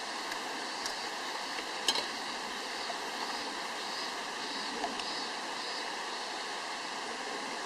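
Steady rushing of a river flowing past the riverbank, with one sharp click about two seconds in.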